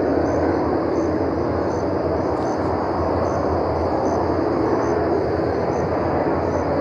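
A steady, unbroken roar from the night sky, with a low hum beneath it and no break or change.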